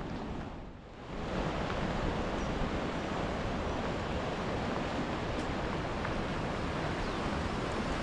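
Sea waves washing over a rocky shoreline, a steady rushing noise, with wind rumbling on the microphone. The noise dips briefly just under a second in, then holds steady.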